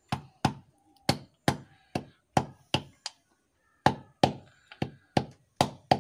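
Hammer tapping a new oil seal into the rotary bearing housing of a VST Shakti 130 DI power tiller, striking through an old oil seal used as a drift: about a dozen sharp knocks, two to three a second, with a short pause about three seconds in.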